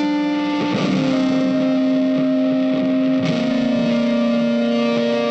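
Background music of long, sustained electric guitar notes with effects, the held note changing twice.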